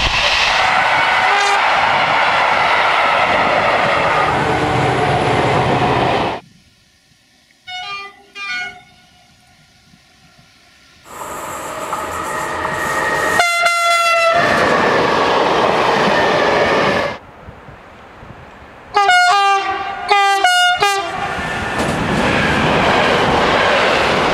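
Trains passing with loud rail and wind noise and sounding their horns, in a run of short clips that cut abruptly from one to the next: two short horn blasts at a distance about 8 seconds in, a longer horn blast as a train passes around 14 seconds in, and a quick series of short horn toots near 20 seconds, then more passing-train noise.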